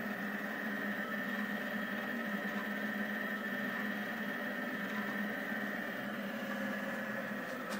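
Rostock delta 3D printer running, its stepper motors and fans giving a steady whine over a low hum.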